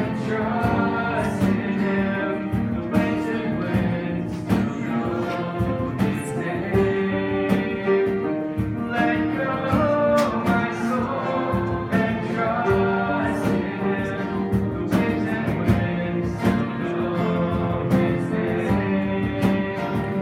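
Worship song played on guitar with singing, at a steady strummed pace.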